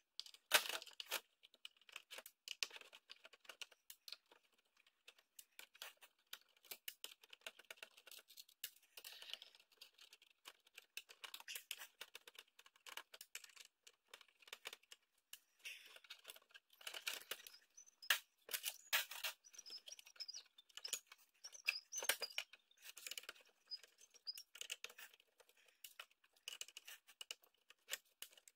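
Irregular small metal clicks, scrapes and rattles of a screwdriver and loose parts as the sheet-metal case of a PC component is unscrewed and taken apart by hand, with a few faint high squeaks in the second half.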